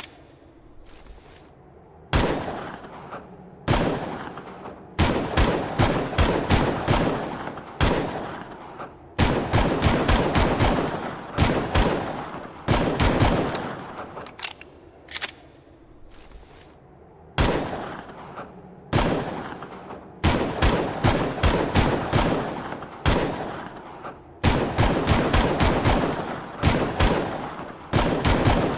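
Longslide pistol sound effect firing, alternating single shots with rapid strings of several shots in a row, each shot followed by a short fading tail.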